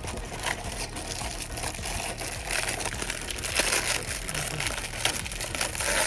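Plastic packaging crinkling and rustling as it is handled, with scattered small clicks and taps. It gets busier and louder about halfway through and again near the end.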